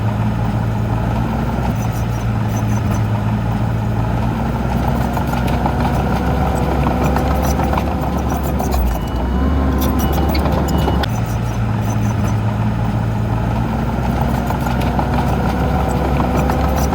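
Diesel engine of heavy earthmoving machinery running steadily, its note changing for a couple of seconds about nine seconds in, with scattered clanks and clicks.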